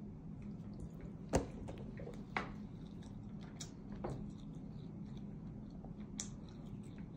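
Cat eating, making faint wet smacking and licking clicks, a couple of them louder, over a steady low hum.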